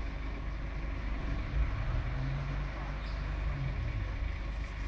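Engines of heavy utility trucks running at a roadside worksite: a steady low rumble, with a deeper hum that swells for about two seconds in the middle.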